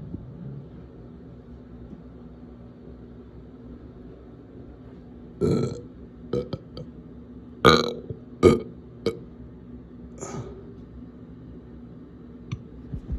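A person burping: a run of short burps with a few small clicks between them, starting about five seconds in. The loudest burps come a little past the middle.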